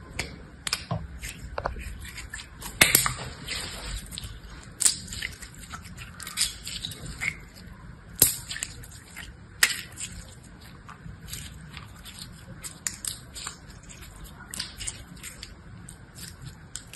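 Translucent slime squeezed and kneaded in the hand, giving irregular wet, sticky clicks and crackles, with several louder snaps here and there.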